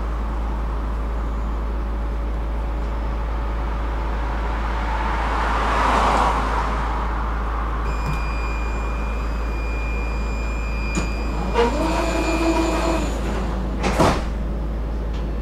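Tram interior at a stop: a steady low electrical hum, a rising and falling whoosh near six seconds in, then a steady high door-warning tone for about five seconds, and the tram's doors sliding shut with a sharp thud about fourteen seconds in.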